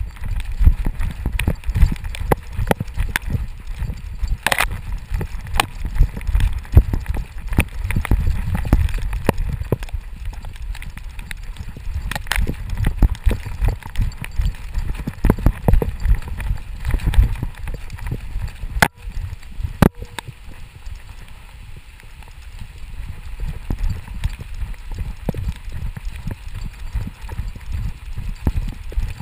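Rapid rhythmic thumping of a dog's galloping strides, picked up by a GoPro strapped to its back: paws striking the forest floor and the harness-mounted camera jolting with each stride, with sharper clicks and rustles mixed in.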